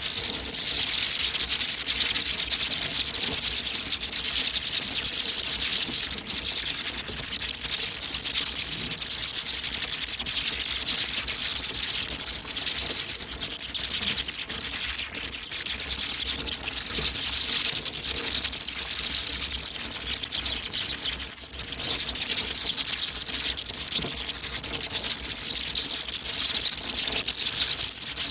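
A dense, continuous flutter of hundreds of bats' wings as a colony streams out of its roost, heard as a steady rush of fine rapid clicks with no pause.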